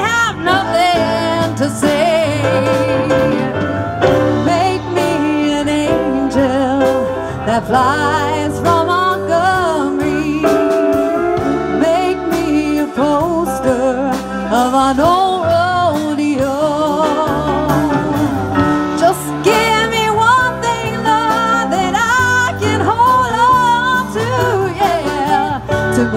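Live band of electric guitar, bass guitar and drums playing a slow country-blues song, with a woman singing lead in long, wavering, sliding notes.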